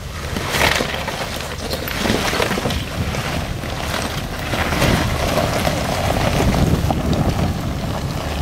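Jeep Wrangler engine running under load as it crawls up a loose rocky hill climb, tyres scrabbling and crunching over rock with scattered knocks. Wind buffets the microphone.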